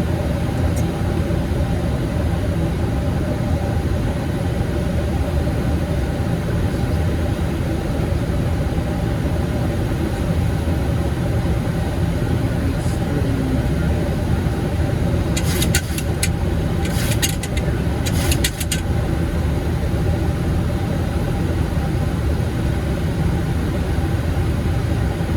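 Steady cockpit noise of a Boeing 737 MAX on final approach: an even rumble of airflow and engines. A short run of sharp clicks and rattles comes about two-thirds of the way through.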